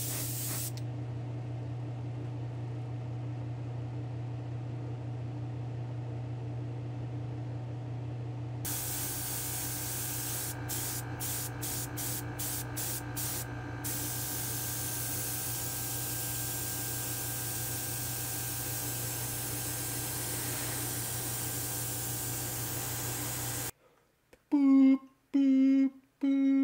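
Airbrush spraying candy orange paint onto small model truck parts: a brief hiss at the very start, then a steady low hum alone for several seconds, then the spray hiss returns in a few short bursts and runs on unbroken. Near the end the spraying cuts off and a few loud plucked music notes play.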